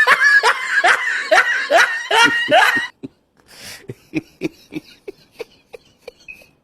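A person laughing hard in a run of loud, repeated bursts that each fall in pitch. About three seconds in, the laughter drops to softer, shorter chuckles.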